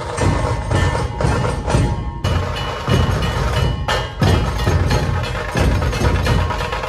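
Dhol-tasha troupe drumming: deep dhol beats under a fast, dense rhythm, loud, with brief breaks about two and four seconds in.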